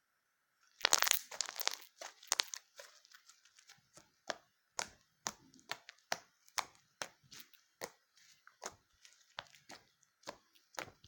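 Slime being squeezed and pressed by hand: a burst of dense crackling about a second in, then a run of sharp pops roughly twice a second as it is worked.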